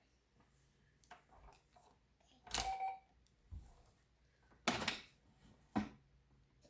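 Cash register being handled: three sharp clattering knocks, the first with a short beep.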